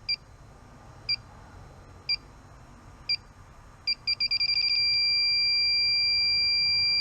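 Handheld combustible gas leak detector sensing R290 propane refrigerant: single beeps about once a second, quickening to rapid beeping about four seconds in, then merging into a steady continuous alarm tone.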